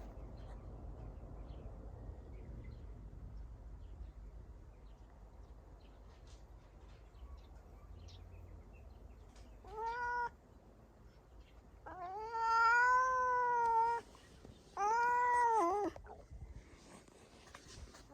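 Cat yowling: after a quiet stretch, three drawn-out yowls, a short one first, then a long one of about two seconds, then a shorter one.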